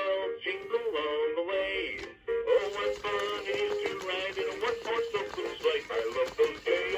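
Animated spinning Santa figure playing its built-in song: a male voice singing over music, with a brief pause about two seconds in.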